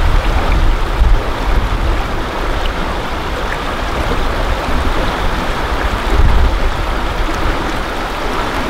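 Shallow stream rushing and burbling over stones, filmed from just above the water, with deeper rumbling surges about a second in and again about six seconds in.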